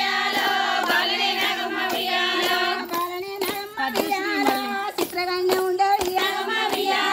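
A group of women singing a Telugu Bathukamma folk song together and clapping their hands in a steady rhythm.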